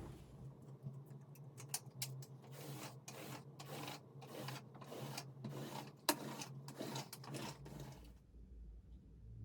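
Quick, irregular scraping or rubbing strokes over a steady low hum; both stop about eight seconds in.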